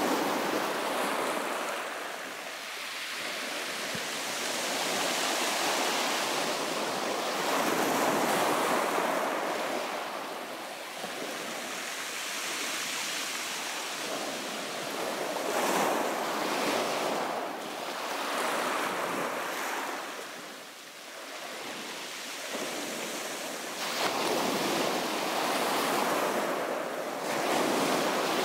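Small sea waves breaking and washing over a shingle beach, swelling and easing every few seconds.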